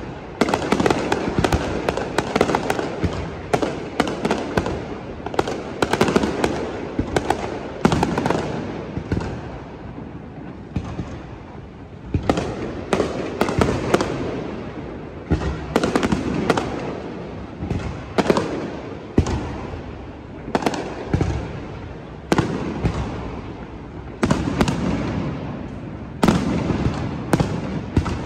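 Aerial fireworks display: a dense, continuous barrage of shell bursts, with many sharp bangs over a steady crackle and rumble.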